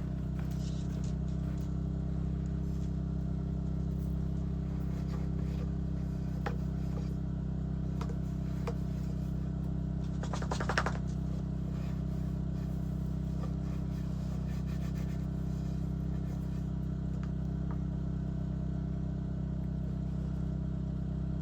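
An engine running steadily, a low even hum with several steady tones, with a short rattle about ten seconds in and a few faint clicks.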